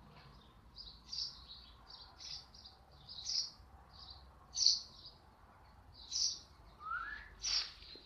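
Baby sparrows giving short, high begging chirps in an irregular string, about a dozen of them, with one lower rising note near the end.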